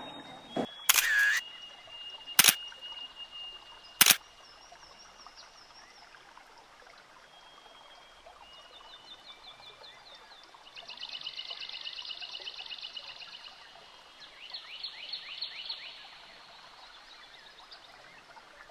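Birds singing outdoors: high, thin trills and whistles that come and go, the loudest two trills past the middle. A few sharp clicks in the first four seconds.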